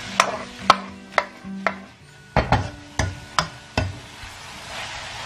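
Metal spatula clacking and scraping against a wok while stir-frying oyster mushrooms and pork, about nine sharp strikes roughly half a second apart over the first four seconds. Near the end the strikes stop and a steady frying hiss is left.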